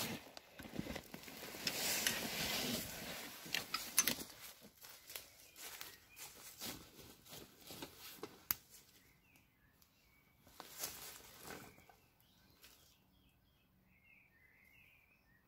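Rustling and crinkling of tent fabric, bags and clothes being handled, loudest in the first few seconds. The second half is quieter, with several faint bird chirps.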